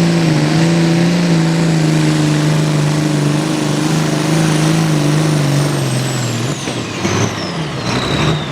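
Hot farm pulling tractor's diesel engine running at full power under load down the track, its note sagging and then falling away about six and a half seconds in, while a high turbo whine winds down. The engine is failing mid-pull: to the announcer it sounded like it dropped a cylinder, and something was coming out the bottom.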